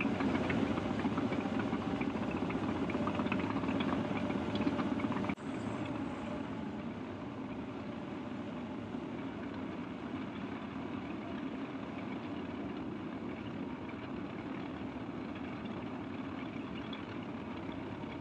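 Caterpillar D6K2 LGP dozer's diesel engine running, with light clicks over it for the first few seconds. About five seconds in, the sound drops off abruptly and carries on as a steadier, duller engine note.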